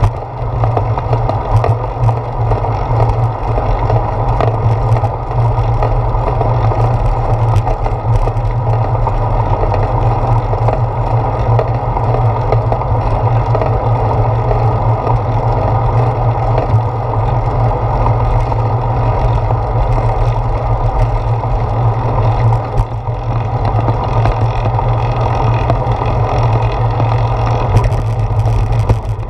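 Steady rumble and buffeting of a bicycle rolling on a paved trail, picked up through a handlebar-mounted GoPro Hero 4 in its housing: wind on the camera and road vibration through the mount, with a few brief rattles.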